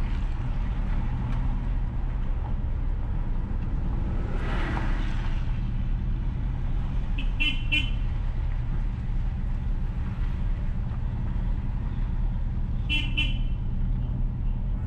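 Steady low road and engine rumble of a car driving along a street, with a vehicle passing about four seconds in. A car horn gives two quick toots about halfway through and two more near the end.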